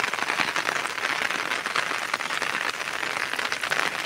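Heavy rain falling steadily, a dense even patter of drops on the ground and surfaces.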